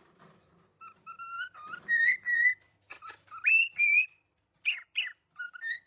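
Pet parrot whistling a string of clear notes, several of them sliding or stepping upward in pitch, with a few sharp clicks near the end.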